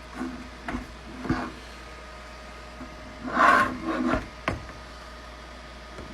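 Handling noise from a 3D-printed plastic barrel: a few short knocks and a brief rubbing scrape, the scrape loudest about three and a half seconds in, then a sharp click.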